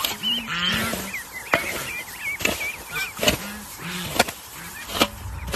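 Metal shovel scraping and striking packed dirt about once a second, pushing spent distillers' grains across the ground. Chirping bird calls and short low waterfowl calls are heard between the strokes.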